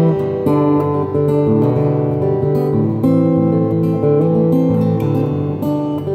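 Acoustic guitar strummed and picked in a run of changing chords, amplified through a Yamaha Stagepas 600i PA system with its plate reverb switched on.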